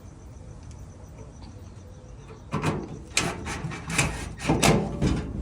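Metal dryer parts being handled during reassembly: a run of clattering knocks and scrapes starting about halfway through, the loudest near the end.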